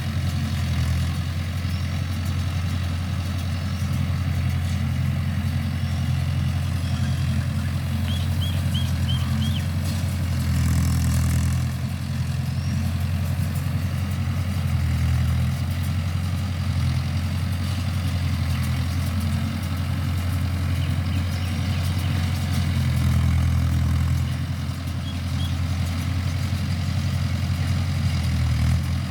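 Mahindra tractor's diesel engine running steadily, its low note swelling briefly every few seconds.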